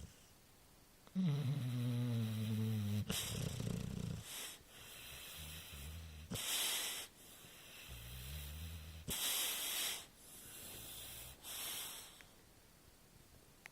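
A Shar Pei dog snoring in its sleep. Low, rasping snores alternate with airy, hissing breaths, about three times over, and the first snore is the loudest.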